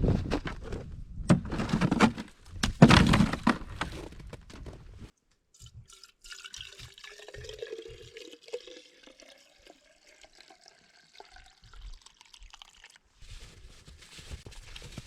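A few heavy knocks and handling noises, then liquid trickling into a small tank, its tone rising steadily as the tank fills: a chainsaw being refuelled before starting.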